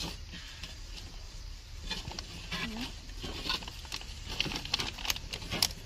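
Scattered light taps and rustles of small plastic milk bottles being handled on a plate, with a tissue rubbing on the mat.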